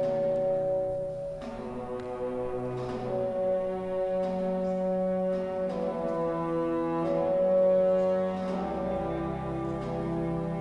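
Live orchestra playing a Spanish Holy Week processional march: slow, held chords with brass to the fore, changing every second or two, and a deep bass line coming in about eight seconds in.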